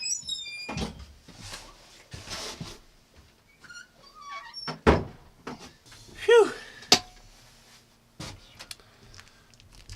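Scattered rustling and knocks with a few sharp thumps, and one short animal call about six seconds in; a few brief high chirps at the very start.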